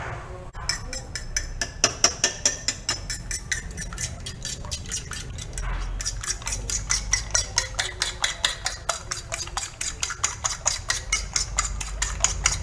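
A fork beating raw eggs in a ceramic plate, the tines clicking against the plate in a quick, even rhythm of several strokes a second, starting about half a second in.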